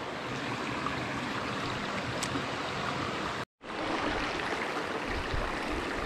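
Small rocky brook running over stones: a steady rush of flowing water, cut to silence for a moment about three and a half seconds in.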